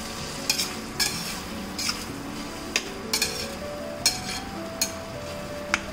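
A metal spatula stirring chickpeas in tomato sauce in a stainless steel frying pan, clinking and scraping against the pan about eight times.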